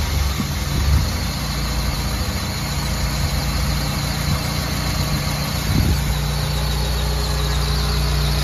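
Honda Accord Maestro engine idling steadily just after being started, with brief rises about a second in and about six seconds in. The car has a fault of hard starting and stalling.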